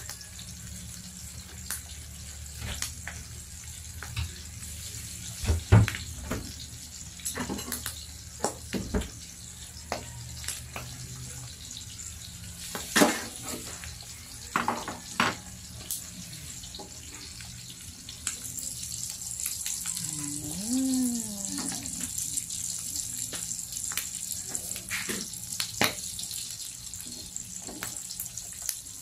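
Sliced ham and pork belly sizzling and spattering in a grill pan, a steady hiss that grows louder about two thirds of the way through. Scattered sharp knocks and clicks stand out above it.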